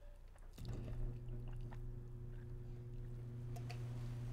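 A steady low hum with a flat, unwavering pitch starts about half a second in and holds, with a few faint clicks over it.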